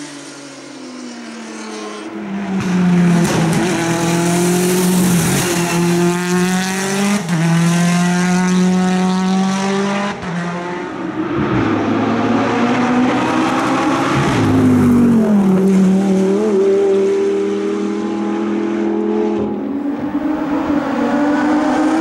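Hill climb race cars accelerating hard up the course one after another, each engine revving up and dropping back at every upshift as it climbs through the gears.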